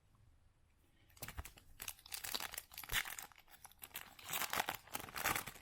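Foil wrapper of a Topps Chrome baseball card pack crinkling and rustling as it is handled and torn open, starting about a second in with irregular crackles.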